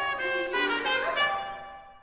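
Solo trumpet playing a quick run of notes, loudest a little past a second in, then the phrase ends and its sound fades away.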